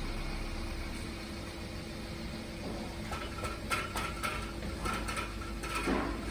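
Car engine idling under load with a metallic rattle from the rear main muffler, heard as irregular clicks and rattles from about three seconds in. The rattle comes out when the engine is loaded in Drive against the brake, and the welds of the silencer's internal baffle have probably come loose.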